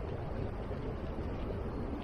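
Steady wind noise buffeting the microphone, a constant low rumble with an even hiss above it.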